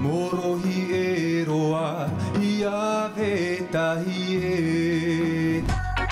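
A man singing a slow, wordless melody with long held notes into a microphone. Near the end it gives way to a short jingle with sharp percussive hits.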